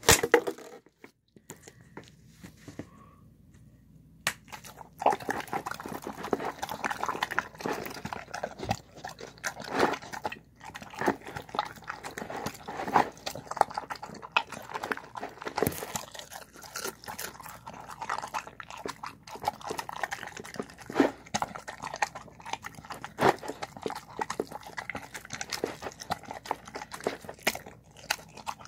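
A dog eating shredded chicken and rice from a bowl: a dense run of chewing, smacking and quick biting clicks that starts about five seconds in and carries on. There is a sharp knock right at the start.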